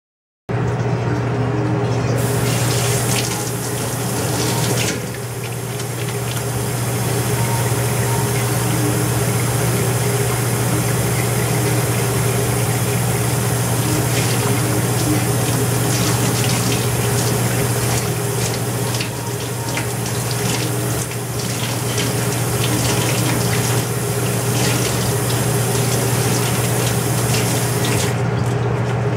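Steady rush of running water, as from a tap, over a constant low mechanical hum.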